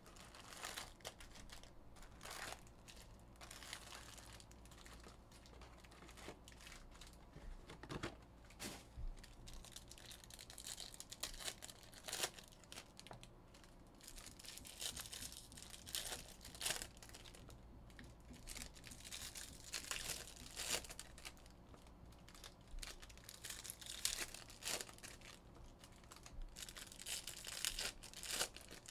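Foil wrappers of 2022 Bowman Jumbo baseball card packs being torn open and crinkled, in repeated short bursts of rustling.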